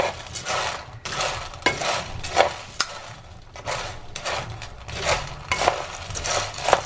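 In-shell piñon nuts rattling and scraping in a skillet as a wooden spatula stirs them, in repeated sweeps with sharp clicks.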